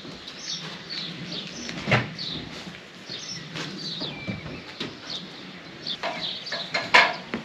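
Small birds chirping repeatedly, with a few sharp knocks and clanks, the loudest about seven seconds in, from a person climbing down an aluminium ladder.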